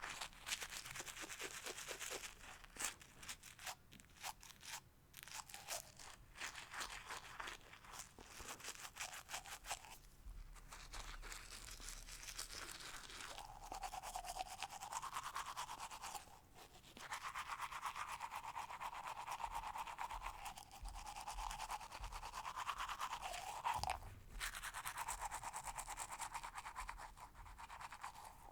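Teeth being brushed with a toothbrush, a fast back-and-forth scrubbing. It pauses briefly about ten seconds in and again near seventeen seconds. In the second half the scrubbing takes on a hollower tone that shifts up and down.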